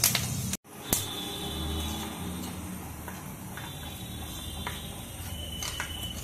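A steel spoon stirring thick mustard masala paste in a steel bowl, scraping and clinking against the bowl now and then over a low steady hum. The sound drops out briefly about half a second in.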